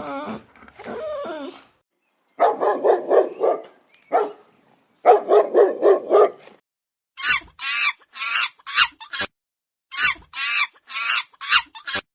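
A dog barking in quick runs of several barks each. Sharper, higher-pitched yaps follow from about halfway through.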